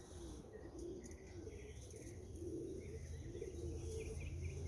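Pigeons cooing softly and repeatedly. From about halfway in, another bird chirps in quick runs.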